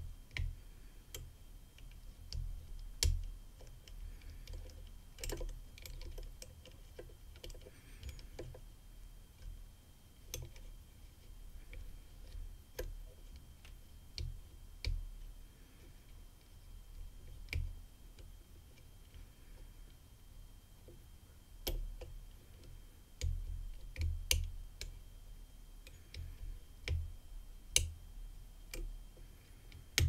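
Faint, irregular clicks from the discs of a disc detainer padlock being turned one by one with a disc detainer pick, with soft low bumps from handling the lock. The clicks are the feedback a picker takes as the discs closing in on the open.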